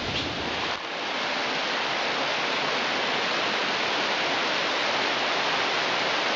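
Water cascading down a mossy rock face into a pool: a steady, even rush that settles in about a second in.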